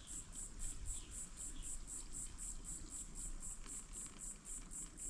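Insects chirping in a steady, high-pitched pulse, about six chirps a second.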